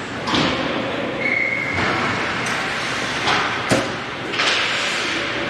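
Ice hockey play: sharp knocks and thuds of puck and sticks against the boards and ice, about five in a few seconds, the loudest about three and a half seconds in.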